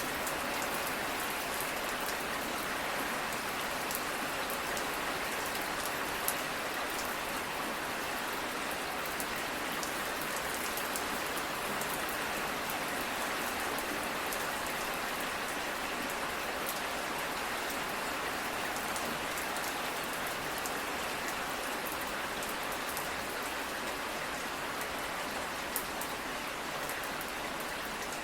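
Steady rain falling, an even hiss dotted with many small drop ticks, with a couple of slightly louder drops along the way.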